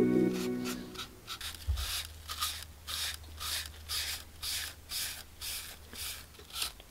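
Repeated hand rubbing strokes on a surface, each a short hiss, about two to three a second. Background music fades out within the first second.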